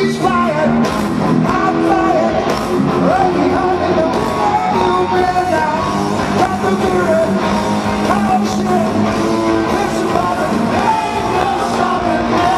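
Rock band playing live in an arena: distorted electric guitar, bass and drums with the lead singer singing and yelling over them, loud and dense throughout, as heard from the audience through a small handheld camera's microphone.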